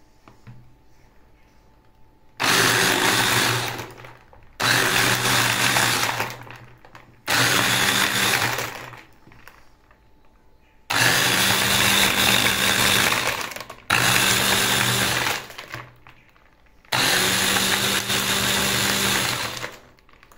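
Electric hand blender on its chopper bowl attachment run in six short pulses, each starting suddenly and lasting one and a half to three seconds, crushing ice cubes with watermelon and lemon soda.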